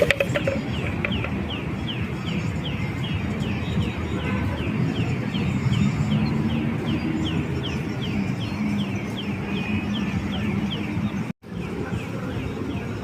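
A bird calls in a fast, even series of short falling chirps, about three a second, over a steady low rumble. The sound breaks off for a moment near the end.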